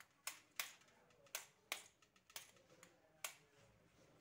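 Hand rubbing moistened urad flour through a round sieve over a steel plate, giving about seven sharp, irregular clicks.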